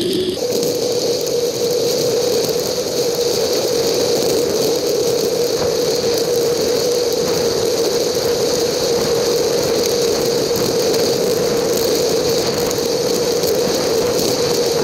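Bicycle riding noise on a rough dirt road, played back fast-forwarded. It comes out as a steady, high-pitched mechanical whir with rattle.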